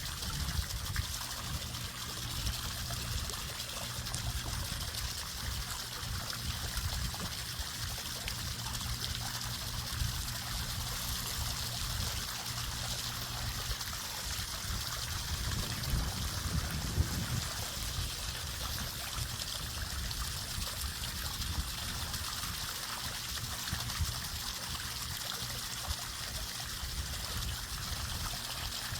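Water trickling steadily, with a low rumble underneath.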